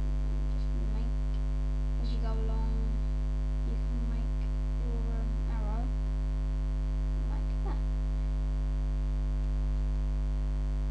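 Steady electrical mains hum picked up by the recording, with faint, indistinct voices under it.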